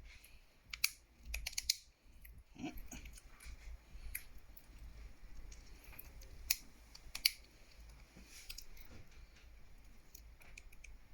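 Scattered small, sharp clicks and taps of a smartphone's plastic and metal parts being handled and pressed together as the mid frame is fitted back onto the phone, with a few louder clicks.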